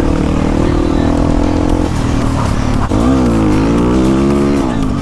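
Motorcycle engine running hard on an off-road climb, holding a steady pitch, then from about three seconds in the pitch dips and climbs again as the throttle is worked.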